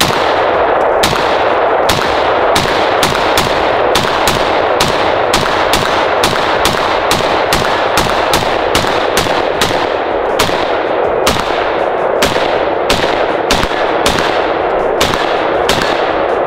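Rapid semi-automatic fire from an IWI Tavor X95 bullpup rifle: a long string of shots, about two to three a second, somewhat uneven in spacing, stopping shortly before the end.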